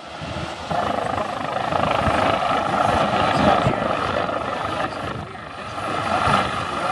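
Twin-turbine helicopter flying low and close, a steady turbine whine under the rapid thudding beat of the rotor blades, louder from about a second in.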